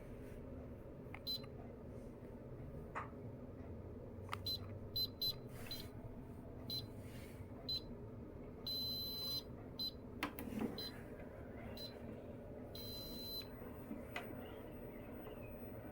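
Electric under-desk elliptical pedal exerciser running with a steady motor hum. Over the hum come a series of short high electronic beeps and two longer, second-long beeps.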